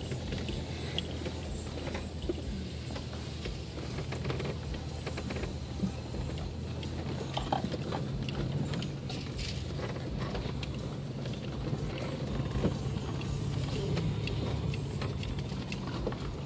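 2001 Toyota Tundra 4x4 running steadily while driving off-road, heard from inside the cab, with scattered clicks, knocks and rattles as it moves over rough, grassy ground. The engine note gets a little stronger near the end.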